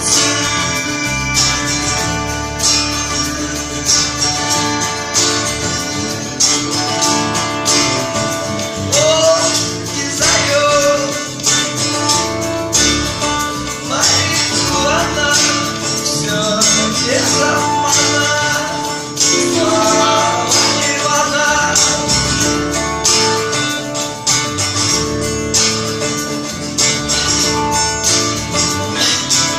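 Live rock song played on strummed acoustic guitar, with a voice singing in places over it.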